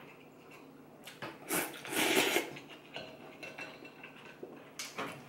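A person slurping a mouthful of rice noodles from a bowl of spicy beef noodle soup: one loud slurp lasting about a second, starting a second or so in, then quieter eating sounds and a short burst near the end.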